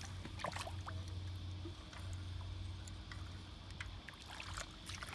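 Small metallic clicks and knocks as a boat trailer's winch hook and strap are handled in shallow water, over a low steady hum.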